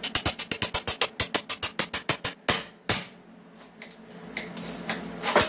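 Rapid hammer blows on a masonry wall while knocking out a hole for an exhaust fan, about nine strikes a second. After a little over two seconds come two slower, heavier blows, then a pause and another strike near the end.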